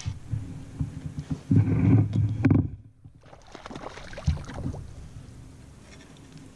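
Low bumps and rumble from a kayak and the fishing gear being handled as the angler sits working a spinning rod and reel, with a few sharp clicks. The loudest bumps come about two seconds in, then the sound drops out briefly and goes on more quietly.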